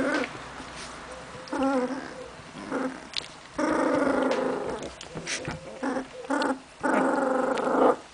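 Young Hungarian vizsla puppies whining in a squirming pile: short pitched cries, a wavering one about a second and a half in, and two drawn-out whines of about a second each, one near the middle and one near the end.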